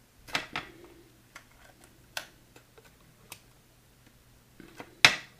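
A handful of separate sharp clicks and ticks from nickel-titanium leader wire and hooks being handled by hand while a small loop is cinched down; the loudest click comes near the end.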